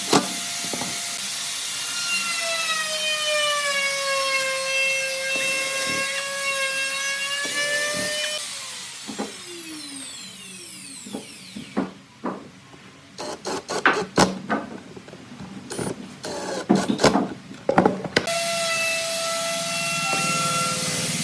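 Electric power tool motor running with a steady whine, then switched off and winding down with falling pitch. Several sharp knocks and clicks follow, then the motor starts up and runs again near the end.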